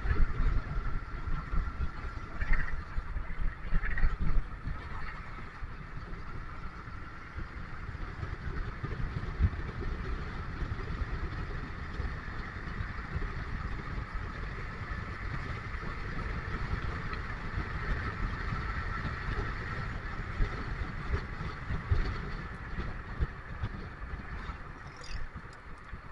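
Road vehicle under way: a steady low engine and road rumble with a faint steady whine above it, and a couple of brief louder moments about three and four seconds in.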